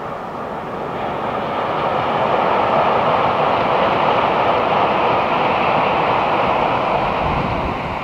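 Tokaido Shinkansen bullet train passing at speed over the steel truss bridge across the Fuji River: a loud rushing noise that swells over the first two seconds or so, holds, and falls away near the end.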